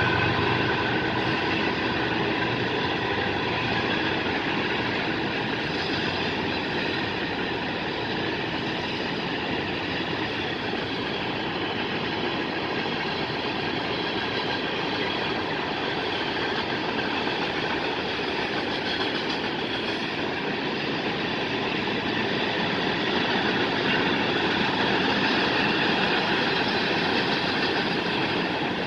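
A CSX mixed freight train's cars roll steadily past, with the continuous noise of steel wheels on rail. A low engine hum from the mid-train DPU diesel locomotive fades out in the first few seconds.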